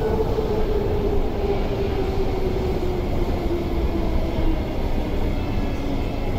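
MTR SP1900 electric multiple unit heard from inside the passenger car, the traction motors whining with a steadily falling pitch over a continuous rumble of wheels on rail as the train slows for the station.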